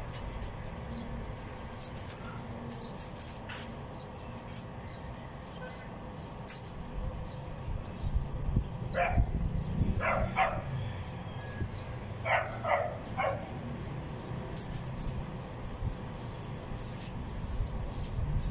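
A dog barks in two short bouts, three barks about nine seconds in and three more about twelve seconds in, over a steady low rumble and frequent high chirps.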